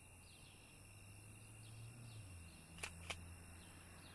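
Near silence: faint night-time outdoor ambience with insects chirping over a faint steady high tone, and two faint clicks about three seconds in.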